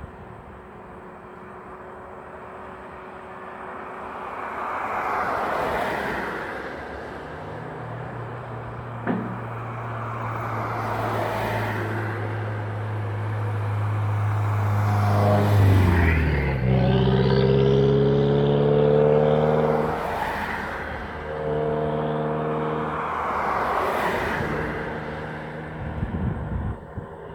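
Road traffic: several vehicles pass one after another, each swelling and fading. Through the middle a heavy engine runs with a low steady hum that drops in pitch about halfway and then shifts up and down in steps, loudest just after the drop.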